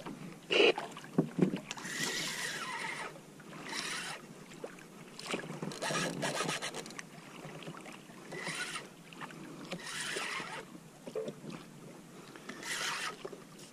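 Water lapping and sloshing against a fishing kayak's hull, with a few knocks and rubbing from gear being handled aboard.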